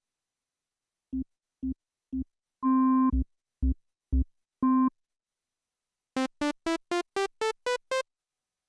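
Korg Minilogue XD analog synthesizer playing factory presets: starting about a second in, a pattern of short pitched notes, a few held a little longer, then after a short pause a quick run of eight brighter, clipped notes moving up and down in pitch.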